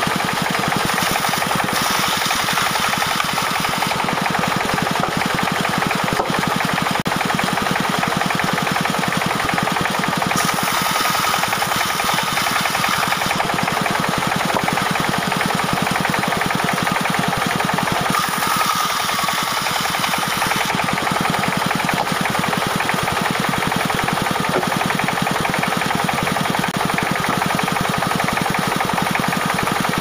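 Band sawmill ripping a log lengthways, its blade driven by a Dongfeng diesel engine running steadily with a fast, even pulse.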